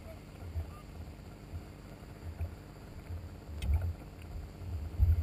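Jet ski engine running at a low idle, an uneven low rumble, with wind buffeting the microphone and a louder bump near the end.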